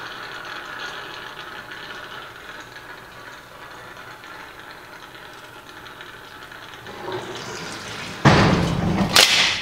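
Electric hydraulic power pack working a dump-bed hoist cylinder, its automatic transmission fluid rushing and gurgling through the pump, hoses and reservoir. The ATF foams in the system, which the owner takes for the wrong oil. A steady rushing swells slightly about seven seconds in, then a much louder rushing noise starts abruptly about eight seconds in.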